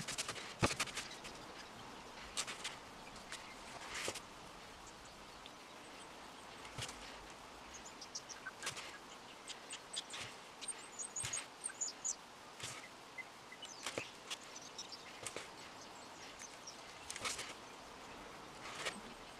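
Paintbrush dabbing and scraping red gloss paint over the gear wheel of a Millers Falls No. 118 breast drill, giving irregular light taps and bristle scratches against the metal, with a few faint high chirps near the middle.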